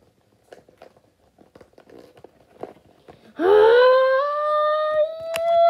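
Faint rustling and small clicks, then about three and a half seconds in a loud, high voice-like note starts low and rises, then holds for over three seconds while slowly climbing in pitch.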